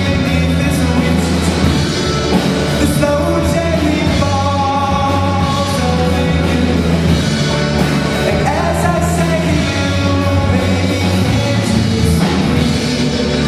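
A band playing a song live, with a voice singing over the instruments.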